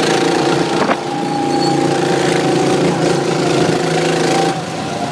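Go-kart's small engine running steadily under way, with a single click about a second in, and easing off slightly near the end.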